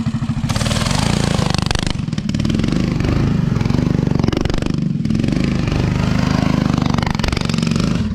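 Mini bike engine revving hard from idle about half a second in, with the rear tyre spinning in grass and dirt in a burnout. The revs drop briefly twice and climb again.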